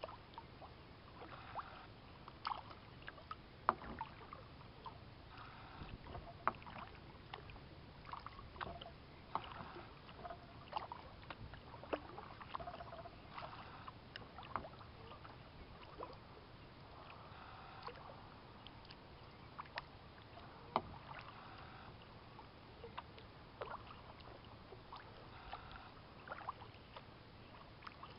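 Kayak being paddled: the paddle blades dip and splash in the water at an easy pace, with drips and scattered sharp clicks.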